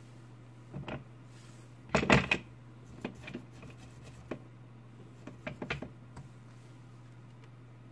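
Small metal repair tools being handled and set down on a workbench: a few light clicks and clatters, the loudest cluster about two seconds in, over a steady low hum.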